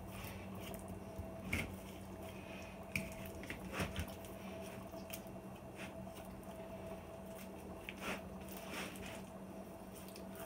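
Knife cutting and scraping raw chicken meat away from the bone, with soft wet squishing and a few short scrapes, over a steady low hum.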